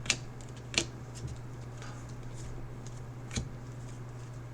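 Trading card packs being handled and opened by hand: a few light clicks and snaps, about three in all, over a steady low hum.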